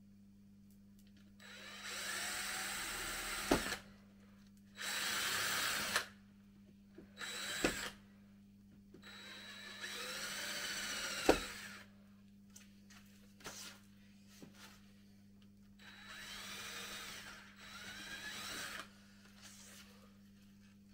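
Electric drill boring pilot holes, a bit slightly smaller than the screw, into a wooden window frame. It runs in several bursts, its whine rising as it spins up and falling as it stops, with sharp knocks between bursts, the loudest about eleven seconds in.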